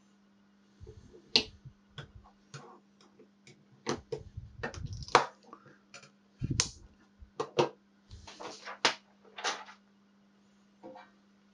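Irregular clicks and knocks as a small sealed radioactive source is put back into its pot with metal forceps and a small wooden box's lid and catch are closed, then the forceps are laid down on top. A steady hum runs underneath.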